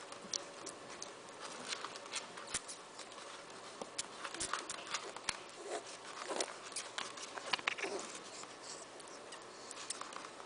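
A piglet sucking and mouthing a finger: quiet, irregular wet smacking clicks, several a second.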